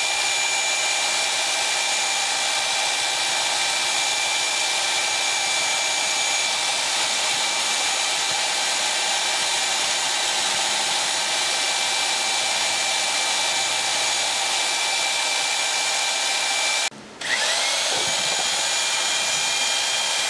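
Electric drill spinning a double-bladed drywall beater paddle in a bucket of Seacast pourable transom compound, running steadily with a whine. About 17 seconds in it stops for a moment, then spins back up.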